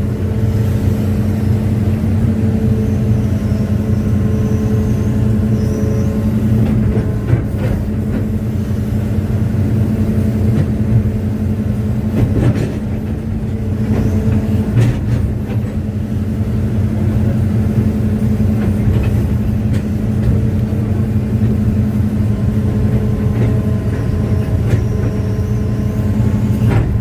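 Hitachi excavator's diesel engine running steadily under working load, with a higher whine that comes and goes and a few short knocks.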